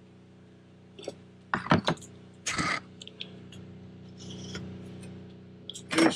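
Clinks, knocks and a scrape of a steel straightedge and a paint marker handled on a steel plate while a cut line is marked, over a steady low hum. The loudest clinks come in a quick cluster about a second and a half in.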